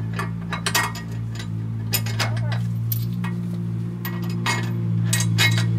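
Irregular metal clinks and taps as the steel caging tool is worked loose and pulled from the back of an air brake spring chamber, over a steady low hum.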